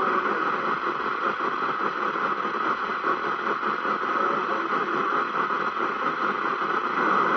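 CB radio receiver with its squelch open on a weak, unreadable FM transmission, giving a steady hiss of static.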